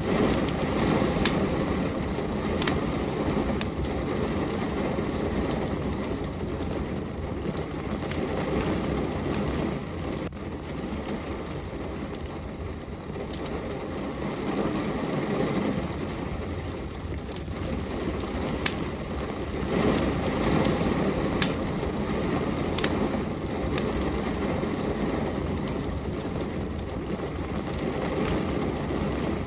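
Steady rain, swelling and easing now and then, with occasional single sharp pops and crackles from a fireplace fire.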